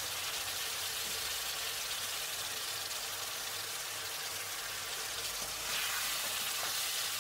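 Chicken karahi sizzling steadily in hot oil in a nonstick pan, just after diced tomatoes and yogurt have gone in. The sizzle gets a little louder about six seconds in.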